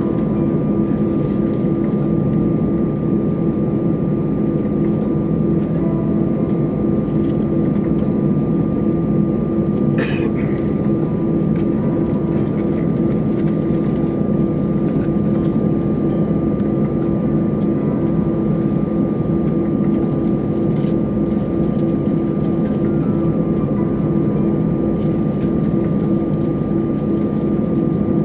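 Steady cabin drone inside an Airbus A320 on the ground, its jet engines idling, with a low hum and a thin, steady high whine. A brief click about ten seconds in.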